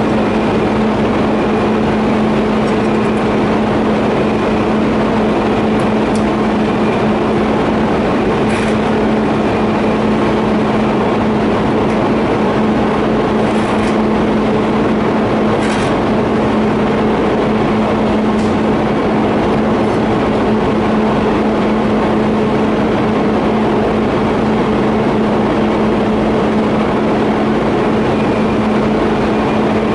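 TIG welding arc joining a 50A pipe flange and elbow: a loud, steady buzzing hiss with a constant hum, unbroken throughout, with a few faint ticks.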